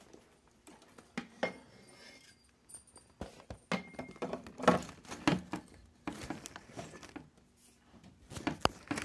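Scattered knocks, clicks and rustling of things being handled, with the sharpest knocks about halfway through.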